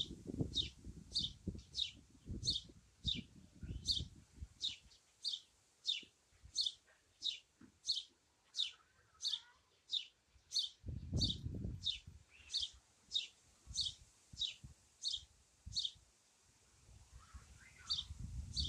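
A single songbird repeating one short, high, falling call note over and over, about one and a half times a second. Gusts of wind rumble on the microphone in the first few seconds, again around the middle, and near the end.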